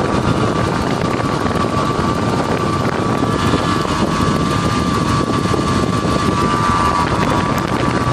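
Porsche 928 S2's V8 engine running steadily, with a steady high whine over the engine noise.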